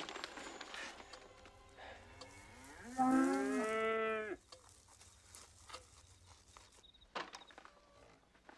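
A cow gives one long moo, starting about three seconds in and lasting just over a second. A short knock comes near the end.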